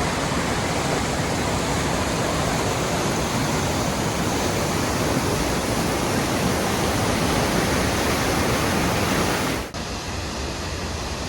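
Waterfall: steady, loud rush of falling water. About ten seconds in, it drops abruptly to a quieter level and carries on.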